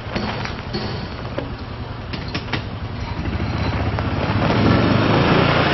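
Kawasaki Mule 610 (KAF400) 4x4 utility vehicle's single-cylinder engine running as it drives over gravel, with tyres crunching on the stones. It grows louder as it comes closer, peaking near the end.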